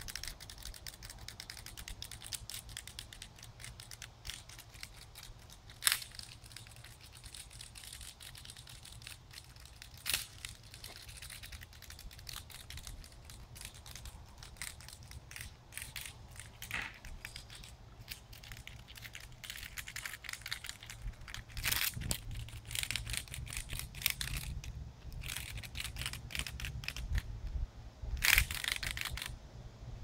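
Irregular crackling and crunching as a skink bites and chews a struggling cicada, with a few sharp louder bursts; the loudest, about a second long, comes near the end.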